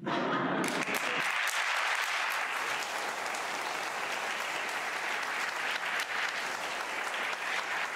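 Audience of a large hall applauding a finished talk, a dense, even clapping that starts suddenly and keeps on steadily.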